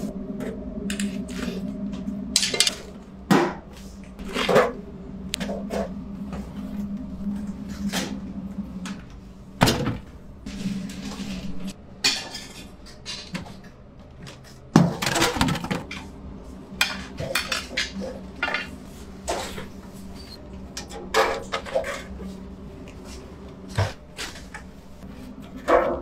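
Irregular knocks and clatter of bakery work over a steady low hum.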